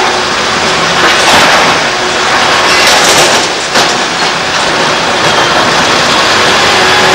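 Liebherr R964 crawler excavator running as its bucket tips demolition rubble into a dump truck's bed. A loud rumbling clatter of falling debris peaks a little past halfway, with a shorter burst a little over a second in.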